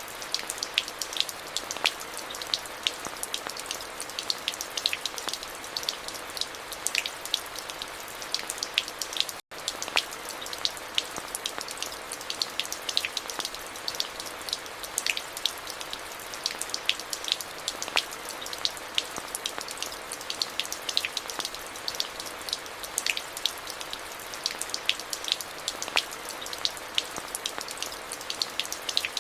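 Steady rain, with many individual drops heard as separate sharp ticks over a constant hiss. The sound cuts out for a split second about nine seconds in.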